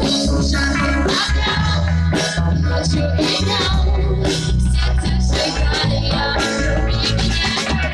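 Live band playing a pop-rock song through a PA, with heavy bass, drums and electric guitar, and a singer's voice.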